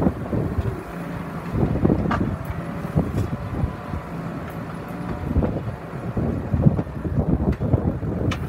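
Case IH MXM155 tractor's diesel engine running steadily under load as it pulls a Kverneland CLC tine cultivator through the soil, with irregular clanks and rattles from the cultivator frame and tines.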